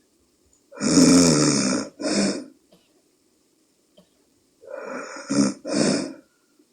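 A woman snoring in her sleep: two loud breaths about four seconds apart, each a long snore followed by a shorter one. She is snoring with a nasal dilator in her nostrils.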